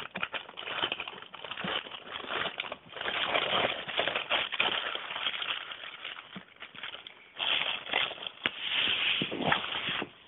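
Thin plastic carrier bag crinkling and rustling in irregular bursts as a pet rat burrows into it and tugs at it, with a quieter stretch just past the middle.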